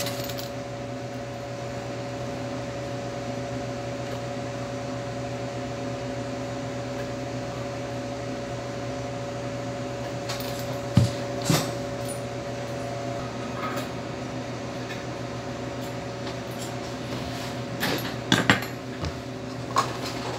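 Steady hum of laboratory equipment holding several fixed tones, with glass test tubes clinking twice about eleven seconds in and several times near the end as the tubes are handled during saline washing.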